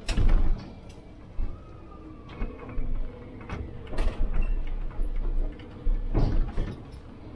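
City bus engine idling, with a series of sharp clicks and knocks from inside the cab. The loudest knocks come right at the start and about six seconds in.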